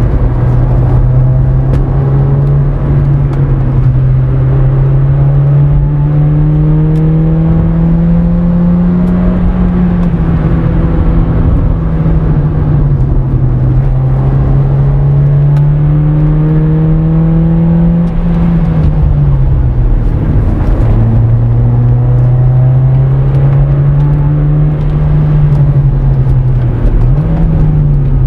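Honda Civic EM2's D17A 1.7-litre VTEC four-cylinder engine heard from inside the cabin while cruising, over steady road noise. Its drone climbs slowly in pitch and eases back several times as the car speeds up and slows, with a deeper dip about two-thirds of the way through.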